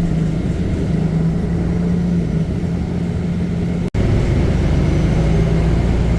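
Bus engine and road noise heard from inside the moving bus: a steady low drone with a steady hum underneath, broken by a momentary dropout about four seconds in.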